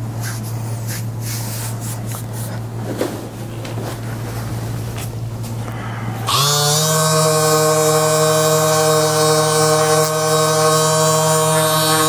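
Background music: a low steady drone, then about six seconds in a sustained pad of several held tones comes in suddenly and holds at a louder level.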